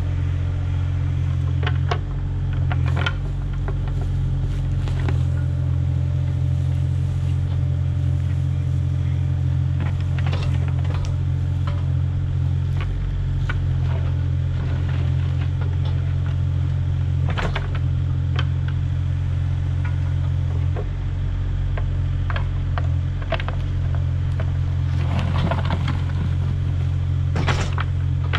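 Kubota mini excavator's diesel engine running steadily under hydraulic load while the bucket digs into and dumps rocky soil, with scattered knocks and clatters of stones and dirt.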